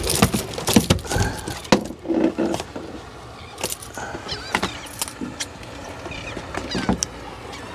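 Rattling clicks and knocks of a freshly netted speckled trout and its tackle being handled in a boat, thick in the first couple of seconds and scattered after.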